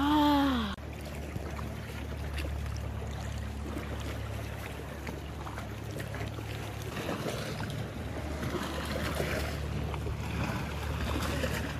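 Water splashing and lapping around an inflatable canoe as it is paddled along, over a steady low hum. A woman gives a short falling "ah" at the very start.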